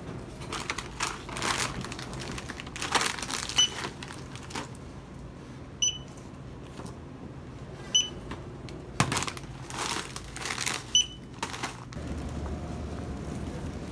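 Checkout barcode scanner beeping four times as packets are scanned, with the crinkling and rustling of plastic snack packaging being handled on the counter. Near the end this gives way to a steady low hum.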